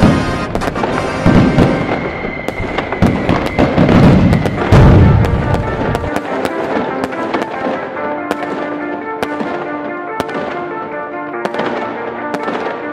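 Fireworks going off: deep booms and many sharp cracks for about the first six seconds, then only scattered crackles over background music.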